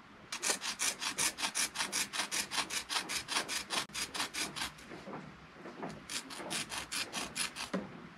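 Braided Dyneema rope being worked by hand, its strands rubbing and scraping in quick regular strokes, about four or five a second, as they are pulled through the braid. The strokes pause briefly about two-thirds of the way through, then resume.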